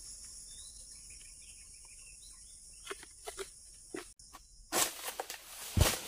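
Steady high insect drone with faint bird chirps in the first half, then a few short knocks and two loud rustling thumps about five and six seconds in.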